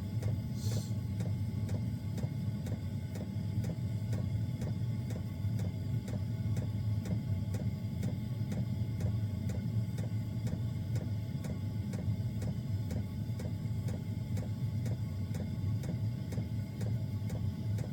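Small diesel air heater running: a steady low hum of its combustion fan with the fuel dosing pump ticking evenly, about two ticks a second.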